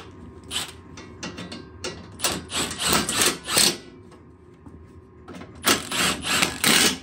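Impact driver hammering in several bursts of a second or so, with a pause before the last ones, as it runs down and tightens the bolts holding an exhaust top plate.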